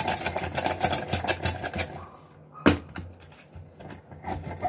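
Lemon halves twisted and ground by hand on a metal citrus reamer, making a fast run of rattling, scraping clicks for about two seconds. Then one sharp knock a little past halfway, followed by a few lighter clicks.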